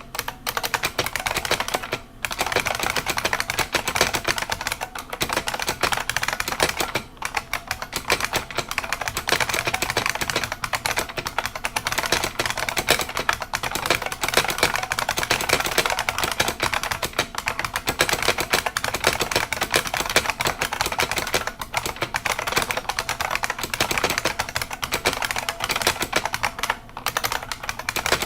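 IBM Model M keyboard's buckling-spring keys clacking in fast, continuous typing, with brief pauses about two, seven and twenty-seven seconds in.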